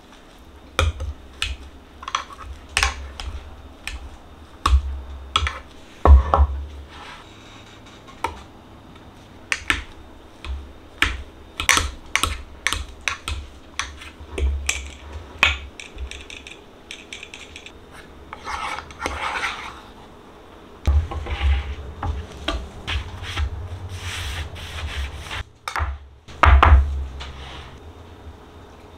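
Wire potato masher working boiled potatoes in a small nonstick saucepan: irregular clinks and scrapes of metal against the pot, with low knocks through the wooden cart top under many strokes.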